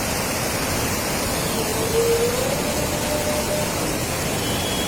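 Fast-flowing floodwater making a steady, dense rushing noise.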